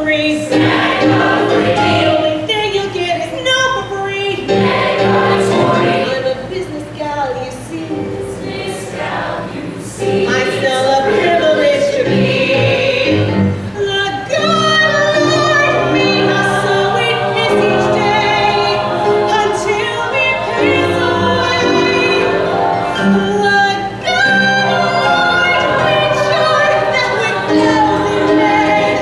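A mixed-voice ensemble singing a musical-theatre number in harmony.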